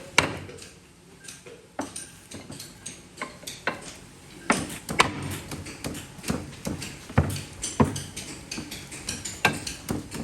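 Irregular hammer blows on scrap metal: a dozen or more sharp knocks, some ringing briefly.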